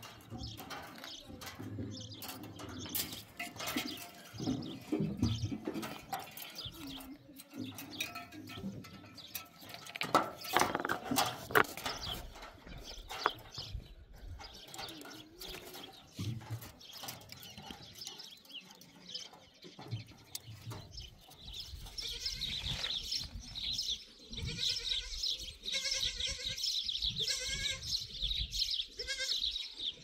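Goats bleating, with several wavering calls in the last few seconds, over scattered knocks and clatter earlier on.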